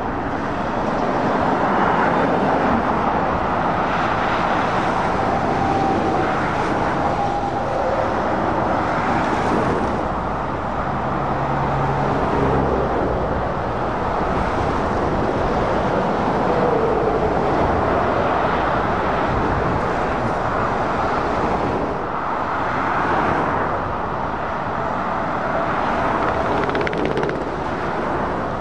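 Heavy lorries and cars passing on a dual-carriageway road below: continuous tyre and diesel-engine noise that swells and eases as each vehicle goes by.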